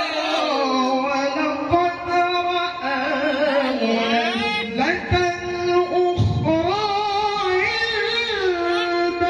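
A male qari's voice through a handheld microphone, chanting Qur'anic recitation (tilawah) in the melodic maqam style: long held notes with ornamented turns and pitch slides.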